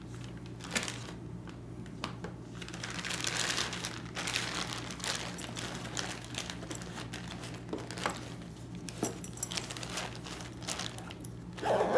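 Clear plastic wrapping crinkling and rustling as knives and their packaging are handled, with scattered light clicks and knocks.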